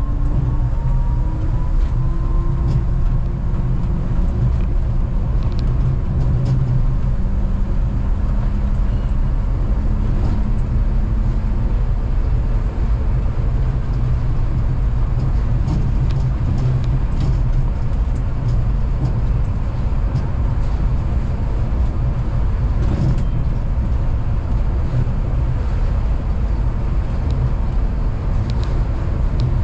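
Kanazawa Seaside Line rubber-tyred automated train running along its guideway. For the first several seconds a motor whine rises in pitch as it gathers speed, then a steady rumble with occasional light clicks.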